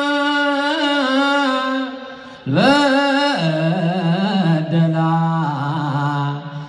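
A single man's voice sings Ethiopian Orthodox Yaredic chant (zema) into a microphone, holding long notes with small wavering ornaments. The first phrase dies away about two seconds in. A new phrase begins about half a second later and settles on a lower held note.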